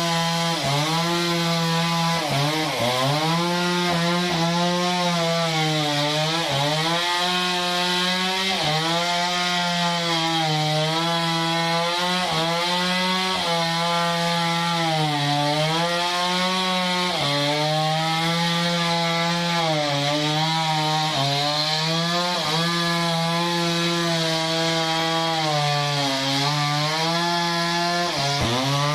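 Sawmill saw cutting through a large log. Its machine hum keeps sagging in pitch under the load of the cut and recovering, every second or two, over a steady hiss of sawing.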